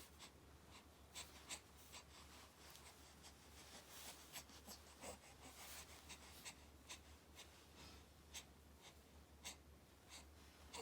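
Near silence with faint, scattered rustles and soft ticks over a low steady hum, like small movements against fabric.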